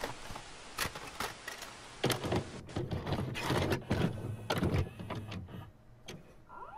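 Video cassette recorder sound effect: tape hiss with a run of mechanical clicks and clunks as the deck loads and starts to play, and a rising whine near the end as the tape gets up to speed.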